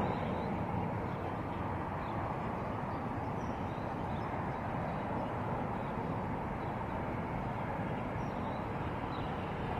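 Steady outdoor background noise, an even rumble and hiss with no distinct events.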